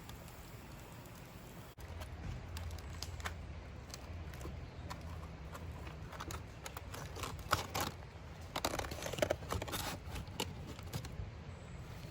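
Aluminium foil crinkling and rustling as a foil packet meal is handled and opened, with scattered small clicks. The crinkling is heaviest a little past the middle.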